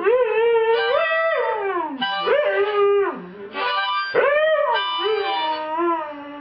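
A dog howling along to a harmonica. The howls slide up and fall away again several times over the harmonica's held, steady chords.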